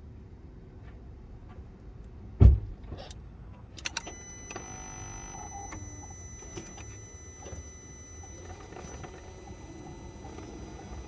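A heavy thump, then two clicks, after which the Cupra Leon PHEV 245 PS's drive system starts a steady high-pitched whine of several fixed tones over a low hum. This whine is the motor noise being shown.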